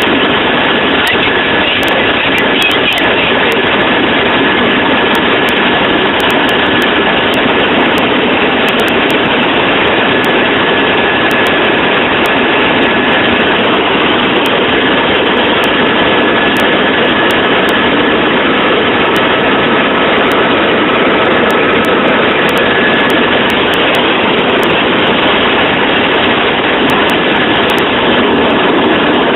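A helicopter's turbine engine and rotor running steadily and loudly, with a thin, steady high whine over the dense engine and rotor noise.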